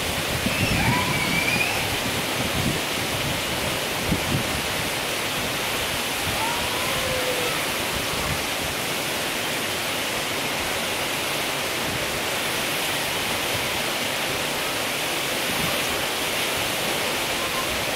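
Steady rushing of a large waterfall, an even wash of falling water.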